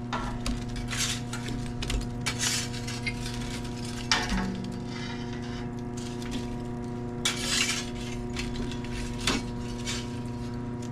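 A long-handled metal rake scraping and clinking across the floor of a wood-fired Valoriani pizza oven, pushing the burning coals to one side onto a grate once the perimeter burn is done. The strokes come as several separate scrapes, loudest about four seconds in and again past the seven-second mark.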